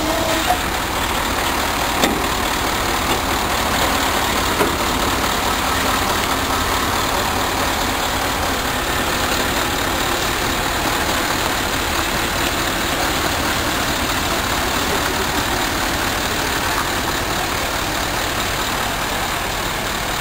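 Heavy-haulage truck diesel engines idling steadily, with a few light knocks in the first few seconds.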